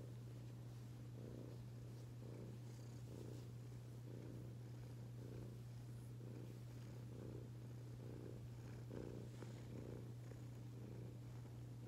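Domestic cat purring steadily while being stroked, a contented purr close to the microphone that swells and eases in a regular pulse a little under twice a second.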